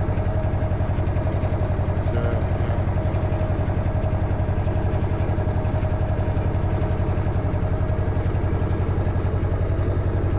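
Narrowboat engine running steadily under way, a constant fast, even throb with a low hum. It is heard loud on board because the engine has no sound insulation or padding underneath it yet.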